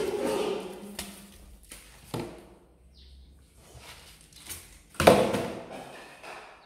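Cats meowing, with loud drawn-out calls at the start and about five seconds in and a shorter one about two seconds in.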